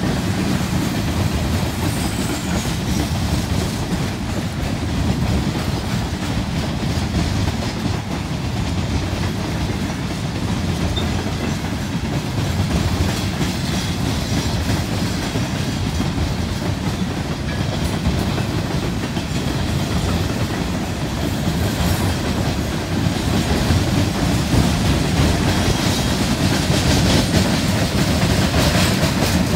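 Long, loaded CSX coke train rolling past, its heavy freight cars clacking steadily over rail joints. It grows a little louder and hissier near the end.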